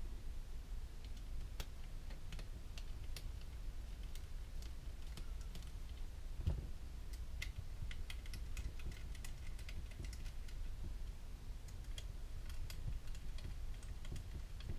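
Scattered light clicks and ticks of small metal screws and parts being handled and fitted into an airsoft gearbox shell, with one louder knock about six and a half seconds in. A steady low hum lies underneath.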